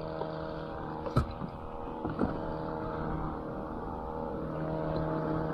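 A motor humming steadily at one pitch, with a sharp knock about a second in and a lighter one about two seconds in.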